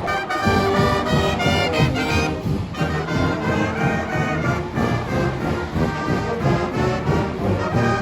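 Marching band brass section playing a tune, with trombones and trumpets over a steady low accompaniment.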